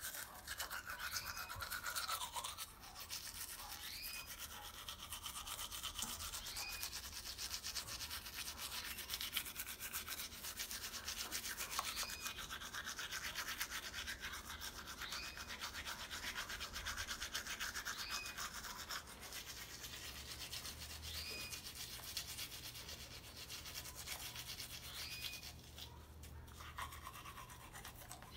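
Electric toothbrush buzzing as it brushes teeth coated in charcoal toothpaste, with a short rising chirp in the sound about every two seconds.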